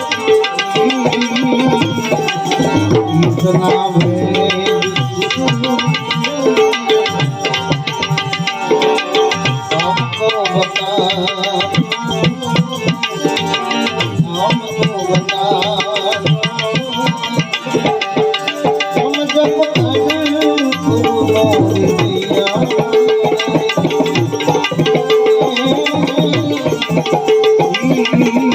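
Instrumental interlude of Gujarati devotional bhajan music: tabla playing a fast, steady rhythm under a melodic accompaniment.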